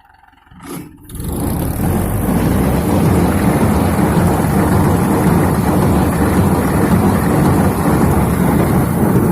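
Tractor-driven paddy straw baler starting up about a second in, then running with a loud, steady mechanical noise.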